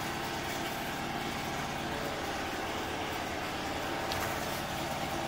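Melco Bravo 16-needle embroidery machine running, a steady hum with a fast, even chatter of stitching.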